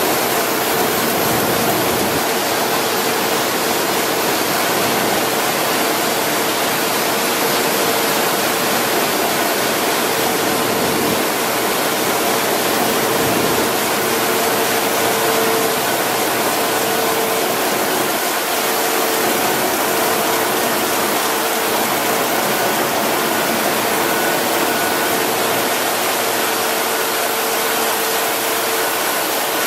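Steady rushing of air from a printing press's blower and air-pump cabinets, with a constant hum underneath.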